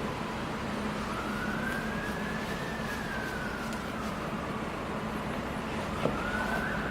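Emergency-vehicle siren wailing, one tone slowly rising and falling over several seconds, above a steady background hiss and low hum; a single click about six seconds in.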